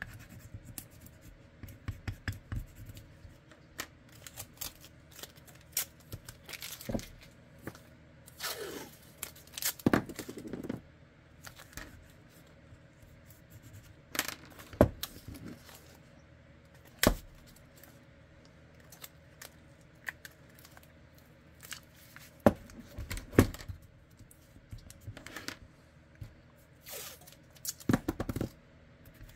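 Hand work at a holster-making bench: scattered clicks, taps and knocks of Kydex, foam and tools being handled, with a longer rasping scrape about nine seconds in and several sharp clacks later, over a faint steady hum.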